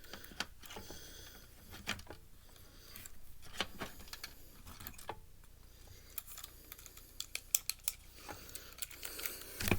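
Irregular small clicks, taps and scrapes of a screwdriver working at a screw inside the plastic and metal casing of a Blu-ray player, with a louder knock near the end.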